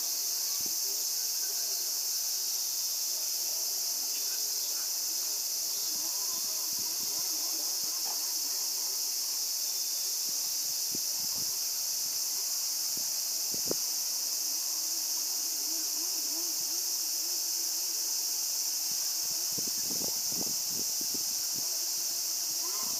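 Steady high-pitched insect chorus, even and unbroken, with faint distant voices and a few soft knocks beneath it.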